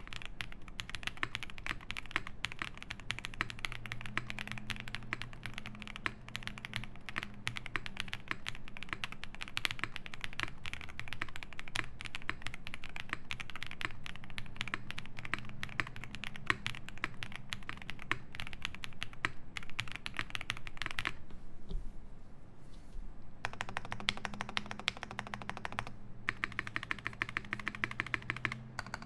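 Fast typing on a Space 80 mechanical keyboard with lubed Epsilon switches, an FR4 plate and GMK Beta keycaps: a dense run of key clacks. It pauses for about two seconds a little over two-thirds of the way in, then resumes with one more brief gap near the end.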